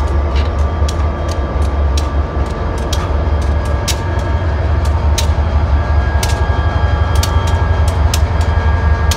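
Diesel freight locomotives passing close at low speed: a deep, steady engine rumble with irregular sharp clicks from the wheels and rails. A faint steady whine grows stronger about six seconds in.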